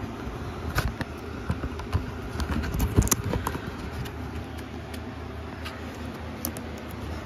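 Handling noise from a plastic-wrapped DVD box set and the phone held close to it: scattered clicks, taps and rustles, loudest about three seconds in, over a steady low hum.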